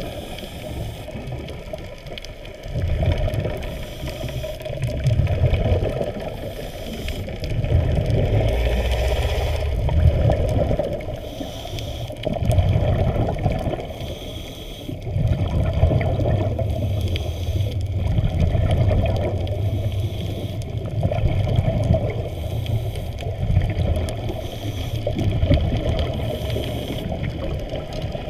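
Muffled underwater water noise picked up by a camera below the surface: a steady wash with low whooshing swells that rise and fall every few seconds.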